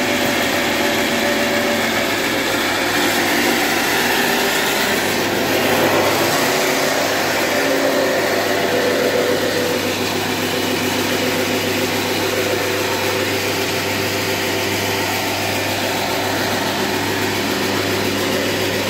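An old band sawmill running with a steady mechanical hum and whine, after sawing through oak lumber.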